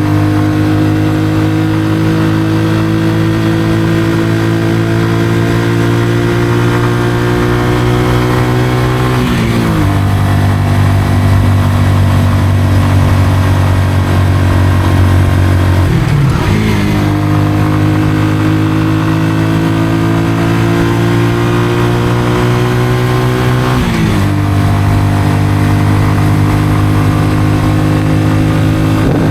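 Honda CBR125R's 125 cc single-cylinder four-stroke engine through a Mivv aftermarket exhaust, pulling under way with its note climbing slowly in each gear. The pitch drops sharply at gear changes about 9, 16 and 24 seconds in, then climbs again.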